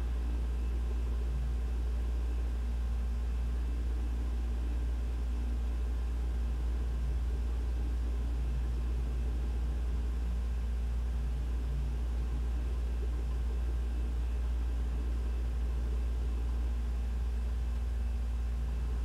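Room ventilation running: a steady low rumble with a faint, even hum over it, unchanging throughout.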